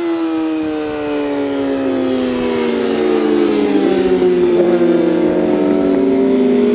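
Several 600cc superbike engines at high revs, their pitches sliding slowly downward and crossing one another as the bikes pass.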